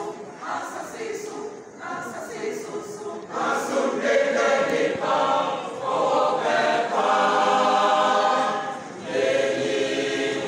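Mixed choir of men and women singing a Catholic hymn: short, softer phrases at first, swelling into a fuller, louder sustained passage about three and a half seconds in.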